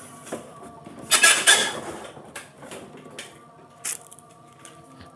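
Flat-screen TV's base stand scraping on a wooden workbench as the set is turned around, loudest about a second in, followed by a few light knocks from handling.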